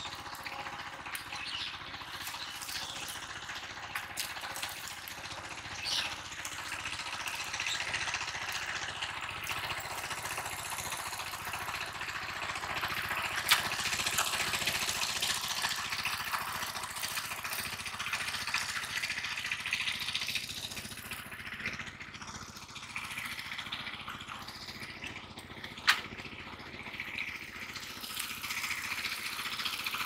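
Hands pulling plant roots and mud from a wet pond bed: wet squelching and rustling over a steady background noise, with two sharp knocks, one about halfway through and one near the end.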